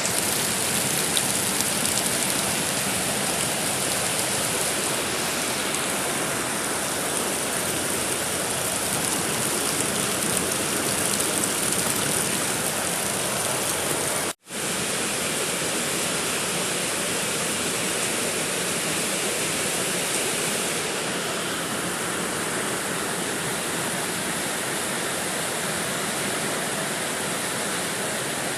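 Steady rain, an even hiss with no thunder, broken once about halfway through by a split-second silence.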